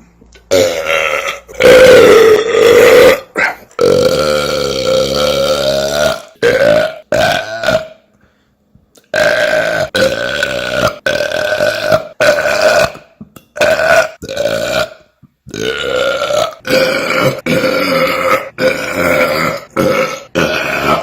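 A man belching loud burps one after another, more than a dozen in a row. Some are long and drawn out, held for a second or two at a steady pitch; the loudest comes about two seconds in. There is a pause of about a second near the middle, then a quicker run of shorter burps.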